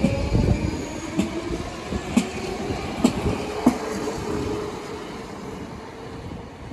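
DSB Litra SA S-train running past, its electric motors giving a whine that sinks in pitch and then holds, with four sharp clacks of wheels over rail joints. The sound fades toward the end.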